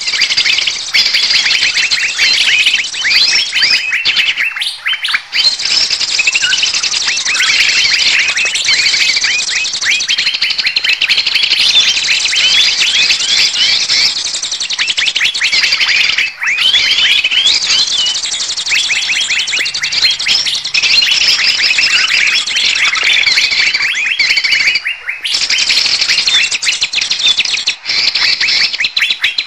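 Bird-lure recording of the kind bird catchers play to draw birds in: a dense, busy chorus of small birds' high chirps and twitters, many birds calling over one another, with two brief breaks.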